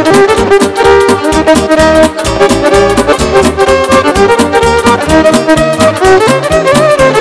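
Lively Romanian hora dance music played by a band, with brass instruments leading the melody over a steady, pulsing bass beat.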